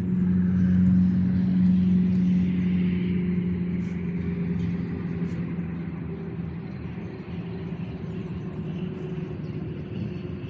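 A passing motor engine, a steady low hum that is loudest about a second in and slowly fades away.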